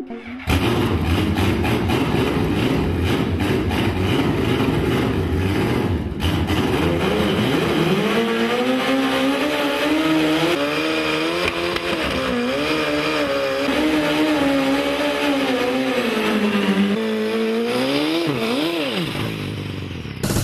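Motorcycle doing a burnout in a concrete underpass: the engine is held at high revs while the rear tyre spins on the pavement, its pitch wavering. Near the end the revs drop, then come two quick blips of the throttle before the engine dies away.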